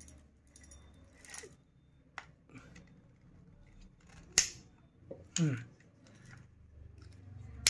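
A baitcasting reel being handled and its handle cranked, giving scattered mechanical clicks with a sharp click about four seconds in and a short falling squeak just after. The handle is faulty: the reel has a broken spring and slipping gears.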